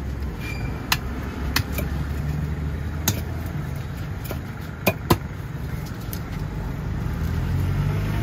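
Knife chopping into a large catla fish on a wooden log chopping block, giving sharp knocks: about six in the first five seconds, two of them close together about five seconds in. A steady low engine hum runs underneath.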